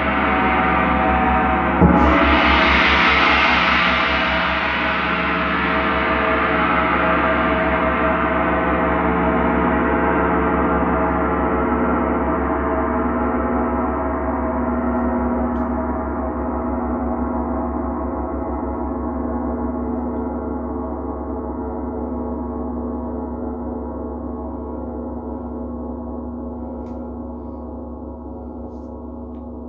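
Large Paiste gong ringing, struck once with a mallet about two seconds in. It then rings on in many overlapping tones that slowly die away, the highest ones first.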